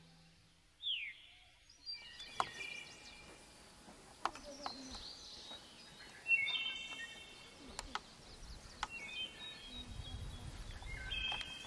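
Songbirds singing in short trilled phrases and chirps, several times over, above faint outdoor background noise, with a few sharp clicks and a brief low rumble near the end.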